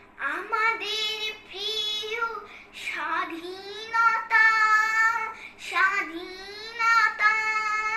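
A young girl singing a Bengali song solo, without accompaniment, in long drawn-out phrases with short breaks between them.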